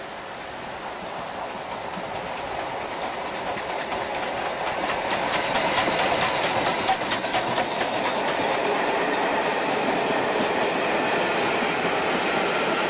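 BR Standard Class 4 2-6-4 tank engine No. 80079 and its coaches passing close by. The sound grows steadily as the train approaches and is loudest as the engine goes past about six seconds in, with a run of clicks from the wheels on the track. It then stays loud and even as the coaches roll past.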